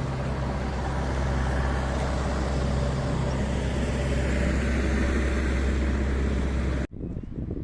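Street traffic noise: a steady low engine hum over road noise.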